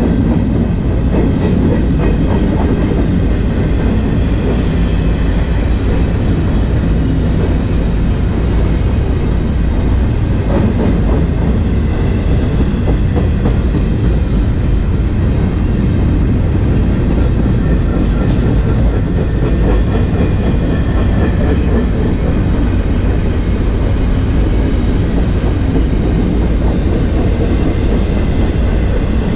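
Intermodal freight train's well cars rolling past at steady speed, their steel wheels running on the rails in a continuous loud noise heaviest in the low range.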